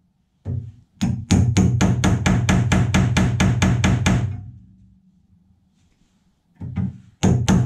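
Rapid, evenly spaced strikes of a chisel being driven into spot welds on a steel sill panel, about seven a second, in bursts that stop twice.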